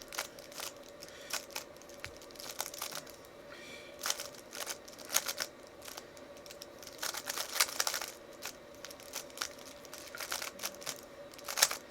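A modern 3x3 speed cube being turned quickly during a solve: irregular runs of plastic clicks and rasps as the layers snap round, with short pauses between runs of turns.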